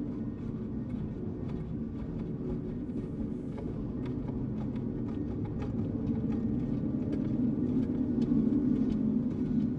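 Dark ambient drone: a low, steady rumbling tone with faint scattered crackles over it, swelling slightly louder in the second half.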